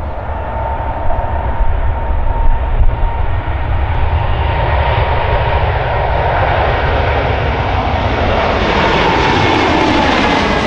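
Boeing 787-8's twin jet engines at takeoff power as the airliner lifts off and climbs overhead: a deep, steady rumble that grows louder, with a whine that slowly falls in pitch near the end as it passes.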